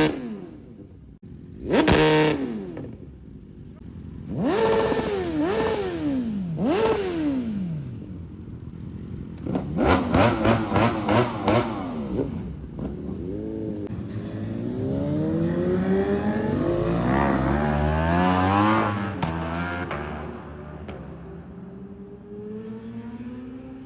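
KTM motorcycle engine being revved: short loud throttle blips, revs that climb and then drop sharply, a quick series of about six blips around ten seconds in, and a longer climbing rev that wavers up and down before it falls back to a lower steady running sound near the end.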